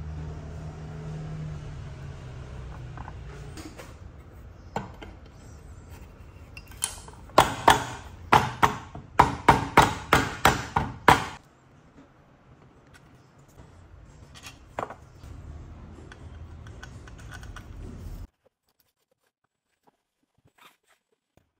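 Workshop work sounds: a low steady hum, then a quick run of about a dozen sharp knocks, roughly three a second, followed by quieter handling noise that cuts off abruptly near the end.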